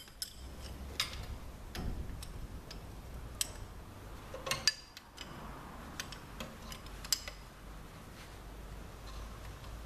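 Irregular light metal clicks and clinks as steel harvester chain bars and their parts are handled and fitted together on a workbench, over a low steady hum.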